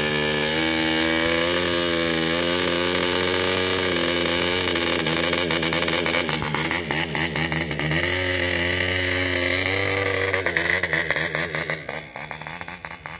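Small model aircraft engine running steadily in flight, its pitch wavering up and down, fading away near the end.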